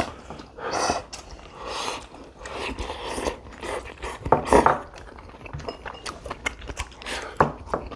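Eating at the table: chopsticks clicking against a plate and chewing, with a louder slurp about four seconds in as a stem of minari (water dropwort) is sucked in.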